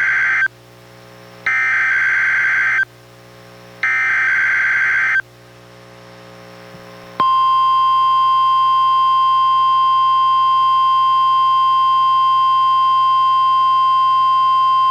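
NOAA Weather Radio emergency alert signal played through a weather radio receiver. First come SAME digital header bursts: the end of one, then two more harsh buzzing data bursts of about a second each, with short gaps between. About seven seconds in, the single-pitch 1050 Hz warning alarm tone starts and holds steady.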